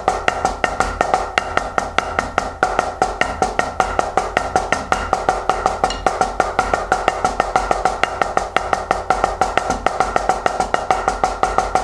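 Drumsticks playing a fast, even stream of strokes on a drum practice pad, with regular louder accents and a slight ringing note under the strokes.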